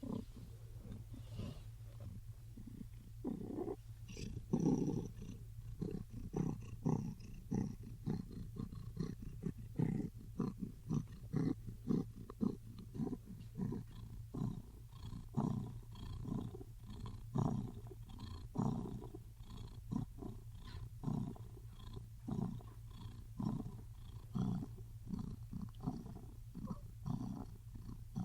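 Big cat giving a low, rhythmic rumbling purr-growl, pulsing about twice a second, over a steady low hum.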